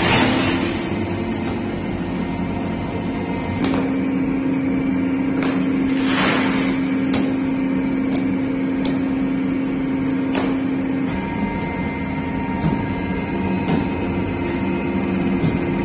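Plastic crushing and milling machine for PVC/WPC foam board running steadily: a constant motor hum over a rushing noise. There are a few sharp clicks and a louder hissing rush about six seconds in, and the hum shifts in pitch a couple of times.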